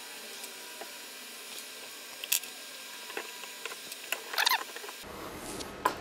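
A few sharp clicks and a brief rattling clatter of hard metal and plastic parts as the Onefinity CNC's Z-slider assembly is worked loose and lifted off the gantry, over a faint steady hiss.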